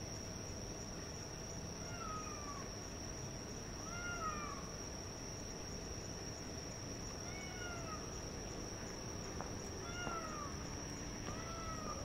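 An unidentified animal calling five times at irregular gaps, each call a short falling 'fuoo' about half a second long. The recordist finds it unfamiliar and likens it to a tanuki (raccoon dog). A steady high-pitched tone runs underneath.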